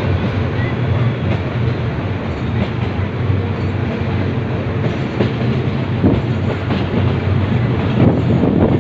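Pakistan Railways train running along the track, heard from inside a carriage: a steady rumble of wheels and carriage. Clacks of the wheels over rail joints become more distinct in the second half.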